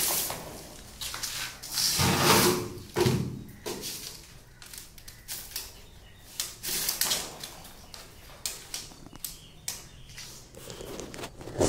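Insulated electrical wires and fittings being handled, pulled and scraped during house wiring work: irregular rustling swishes with scattered sharp clicks and knocks, the loudest swishes a few seconds in.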